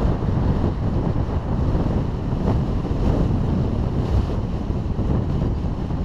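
Wind buffeting a GoPro Hero3's microphone as the bicycle it rides on rolls at speed: steady, loud wind noise.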